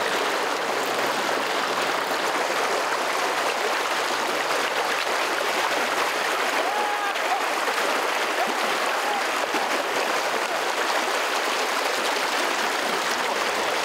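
Fast shallow river water rushing steadily over a riffle, close by, as the current runs around the legs of a wading angler.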